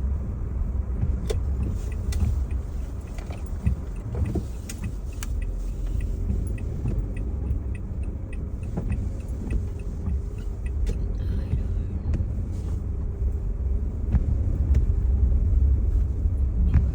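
Car driving slowly on a snow-covered road, heard from inside the cabin: a steady low rumble of engine and tyres with scattered light clicks and ticks.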